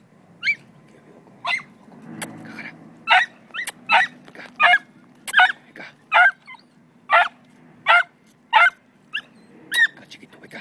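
Hunting dog yelping repeatedly in bramble scrub: a run of short, high-pitched yelps, at first spaced out and then coming about one or two a second from about three seconds in. It is a dog giving tongue on the scent of a rabbit at its bed.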